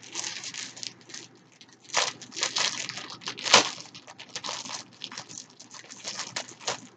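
Plastic packaging being handled and torn open: irregular crinkling and crackling with sharper tearing strokes, the loudest about three and a half seconds in.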